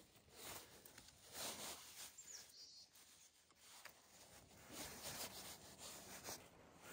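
Faint rustling and swishing of nylon webbing straps being pulled through buckles and tightened, with jacket fabric rubbing, in several soft strokes.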